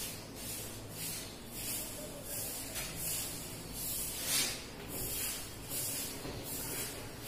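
Chalk writing on a blackboard: a run of short scratchy strokes, a few each second, as letters are written.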